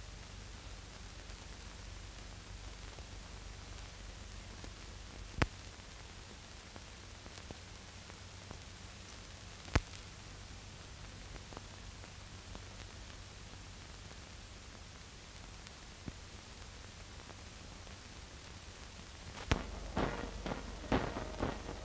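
Steady hiss and low hum of an old film soundtrack, broken by a few sharp clicks about five and ten seconds in. Near the end, music with sharp repeated beats comes in.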